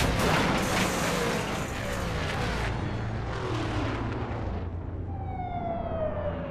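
Dirt-track race cars racing past at speed: a loud, dense engine noise that thins and fades out over the first four or five seconds. Near the end a single engine note slides slowly down in pitch as a car draws away.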